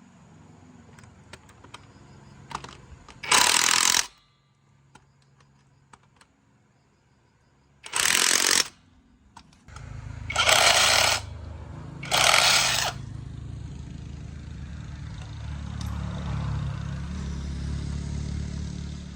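Four short, loud hissing blasts, each about a second long, from a workshop tool. From about ten seconds in, a low, steady motor hum runs underneath.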